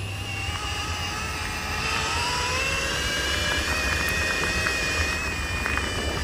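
Milwaukee brushless cordless drill driving a chain-driven minibike, its motor whining in several tones that rise slowly as the bike picks up speed, over a low rumble. The whine levels off and drops near the end.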